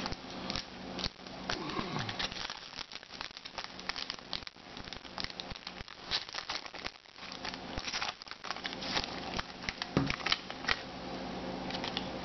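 An Upper Deck SP Authentic foil card pack being torn open and crinkled by hand, a dense run of sharp crackles and rustles, with the cards then slid out and handled.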